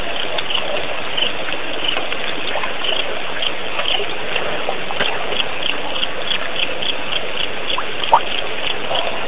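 Night chorus of frogs and insects: a steady hiss with a high chirp repeating about two or three times a second, and two short rising calls near the end.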